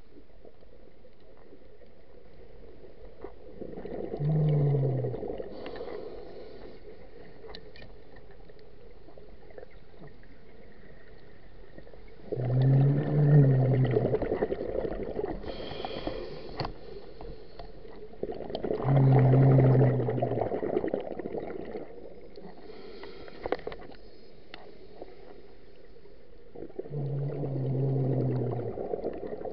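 Scuba diver breathing through a regulator underwater: four exhalations about every seven to eight seconds, each a low buzzing rush of bubbles, with fainter hisses between them.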